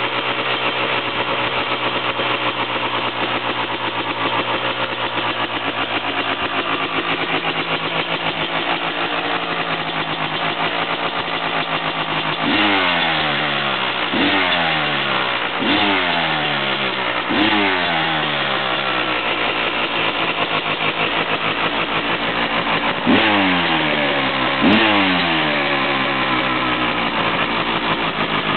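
1999 Honda CR250R's single-cylinder two-stroke engine on its first cold start after a complete rebuild. It idles steadily, then is blipped four times in quick succession, each rev rising sharply and falling back. Two more blips come near the end.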